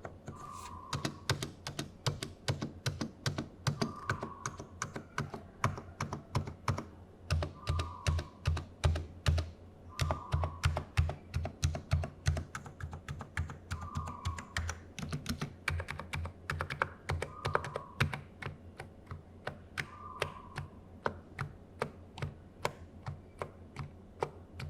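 Typing on a NiZ X87EC(S) keyboard with electrostatic capacitive switches, which use a spring and rubber dome. It is a steady stream of quick keystrokes, each a click over a low thud. The stabilizers are lubed, so the spacebar, enter and delete keys sound soft.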